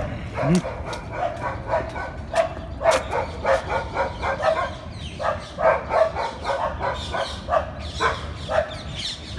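A dog barking over and over, a rapid run of short barks at about three a second.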